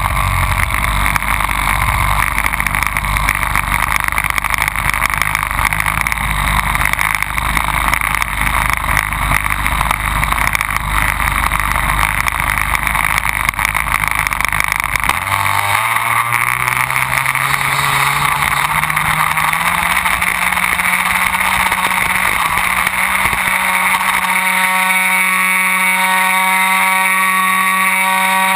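Radio-controlled model airplane's motor and propeller running, with heavy wind rumble for the first half. About halfway through the rumble drops away and the motor's pitch rises for several seconds, then holds at a steady high whine.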